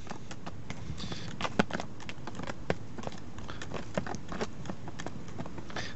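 Scattered light clicks and taps from handling gear, irregular and unevenly spaced, over a steady background hiss.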